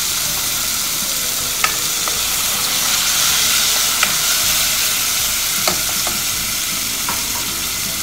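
Sautéed tomatoes, onion and ginger sizzling in a pot with a steady hiss. A spoon stirring them clinks sharply against the pot several times.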